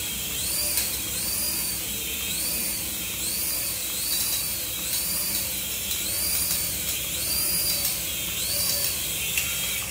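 Small toy RC helicopter's motors and rotors whining, the high whine rising and falling in pitch roughly every second.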